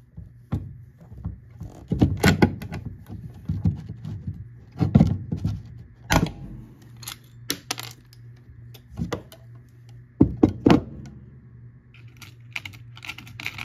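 Hand pop-rivet gun riveting shut the metal case of an Apple II Plus power supply: a series of sharp, irregular clicks and snaps as the handles are squeezed and the rivets are set, with small metallic rattles.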